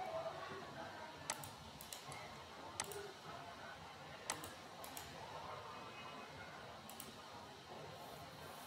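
Computer mouse clicking, about six short sharp clicks spread across the few seconds, some in quick pairs, over a faint room hiss.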